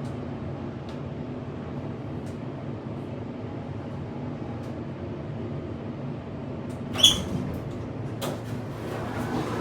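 Hydraulic elevator cab in motion: a steady hum with low droning tones from the car and its machinery. A sharp clack comes about seven seconds in and a few lighter knocks follow near the end, as the shaky, loosely fitted cab and door rattle.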